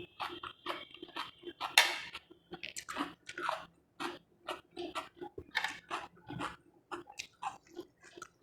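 A person chewing and biting food close to the microphone, a quick run of short crunchy mouth sounds with one louder bite about two seconds in.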